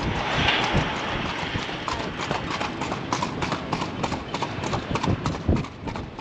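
A carriage horse's hooves clip-clopping at an even pace, about four strikes a second, with a brief rushing noise in the first second or so.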